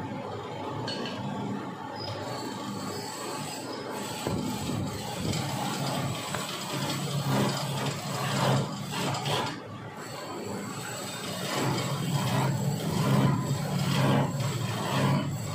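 Wood lathe running with a steady hum while a hand-held turning chisel scrapes and cuts into the spinning wooden swing leg, cutting grooves into it. The scraping starts a few seconds in, eases briefly near the middle and is loudest in the second half.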